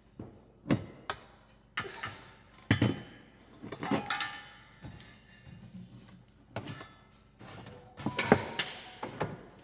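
Metal roll cage tube knocking and scraping against the car's body and interior as it is worked into place: a series of irregular clanks and thunks, some with a short metallic ring, the loudest near the end.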